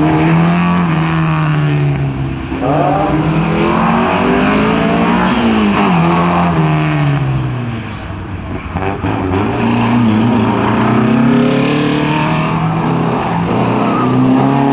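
Competition car's engine at hard throttle on a slalom course, its pitch climbing and dropping back several times as the car accelerates and slows between the cones.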